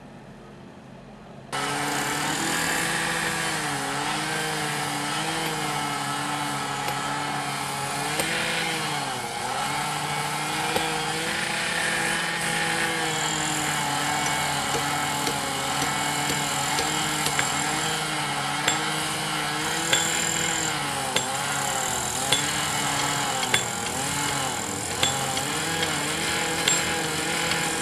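A power tool's small engine starts abruptly about a second and a half in and runs steadily, its pitch dipping and recovering again and again as it is loaded, during track repair work. In the second half sharp knocks come about once a second over it.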